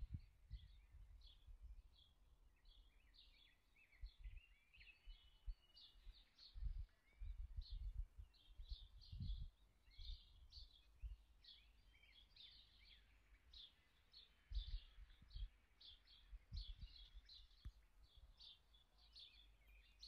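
Small birds chirping and twittering faintly and steadily throughout, with scattered soft low thuds of handling on the microphone.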